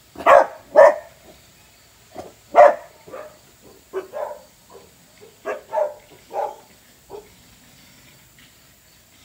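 A dog barking repeatedly, two loud barks right at the start, then a loose string of shorter, quieter barks at irregular spacing.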